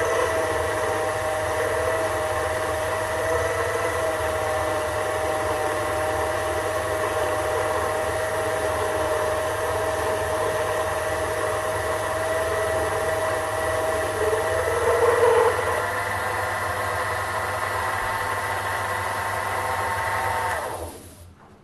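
Sherline micro lathe running steadily with a whine from its motor and spindle while a brazed carbide insert tool turns a bar of steel, with a brief louder patch about two-thirds of the way through. Near the end the lathe is switched off and the sound dies away quickly.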